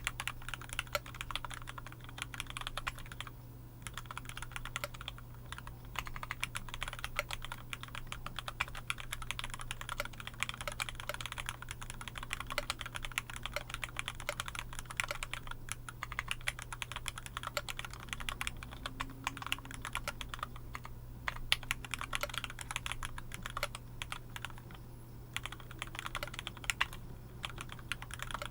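Continuous fast typing on a Novelkeys NK65 mechanical keyboard with Cherry MX Black linear switches on 63.5 g springs: a dense stream of key clacks and bottom-outs, with brief lulls about three seconds in and near twenty-one seconds.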